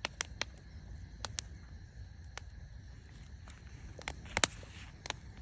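Wood fire in a metal fire bowl crackling, with sharp, irregular pops, the loudest about four seconds in. A steady high chorus of insects runs underneath.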